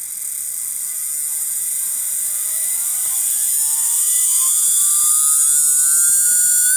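TOMIX M-9 N-gauge model-train motor, fitted with a swapped-in rotor, spinning up on a bench test: a whine that rises steadily in pitch and grows louder over a high hiss. The running noise is abnormal, enough to keep this motor out of the train.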